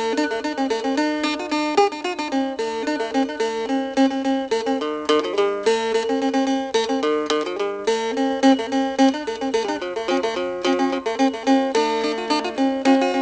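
Music on a plucked string instrument, fast runs of quickly repeated bright notes with no bass.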